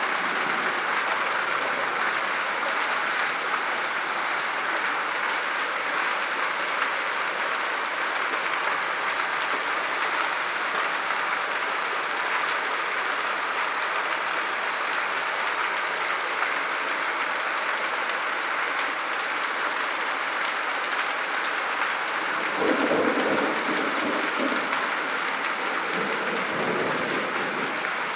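Heavy rain pouring steadily in a severe thunderstorm, an even hiss throughout. A low rumble swells briefly about 22 seconds in and again a few seconds later.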